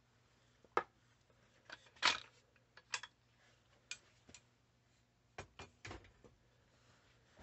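Light scattered clicks and taps of a brass shotgun case and small parts being handled and set down on a wooden workbench, about ten of them, the strongest about two seconds in.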